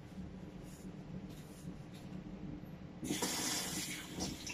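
A bathroom sink tap turned on about three seconds in, with water running steadily into the basin for hand-washing. Before that only a faint background hum.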